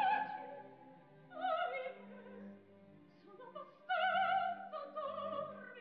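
Operatic soprano singing sustained notes with vibrato, in short phrases over a soft orchestral accompaniment.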